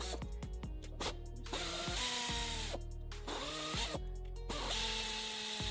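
Ratchet wrench backing out the timing chain tensioner bolt on a four-stroke dirt bike engine. Rapid clicking comes first, then three short runs of a steady whine with brief pauses between them.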